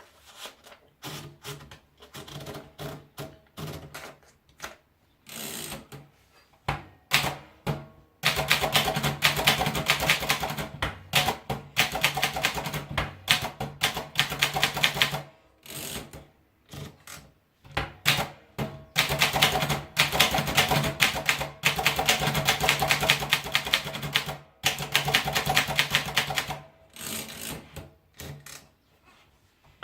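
Adler Favorit 2 manual typewriter being typed on. Slow, separate keystrokes for about the first eight seconds, then fast runs of clattering typing with short pauses between them.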